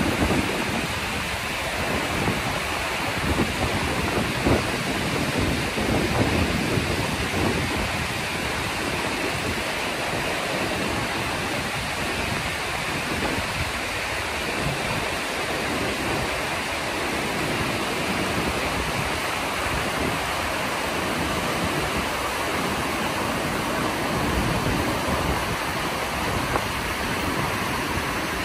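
Steady rushing of whitewater rapids and falls on a river, with wind buffeting the microphone in irregular low gusts at times.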